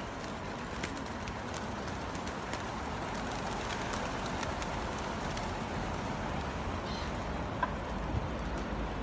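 A flock of pigeons cooing, over the steady rush of a flowing river, with scattered short clicks.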